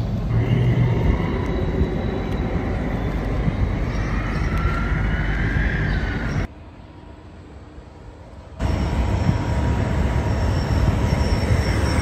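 Electric scooter's AVAS loudspeaker playing its artificial warning sound, a steady vehicle-like hum with faint tones that glide up and down in pitch as the scooter moves. The sound cuts out abruptly for about two seconds midway, then returns.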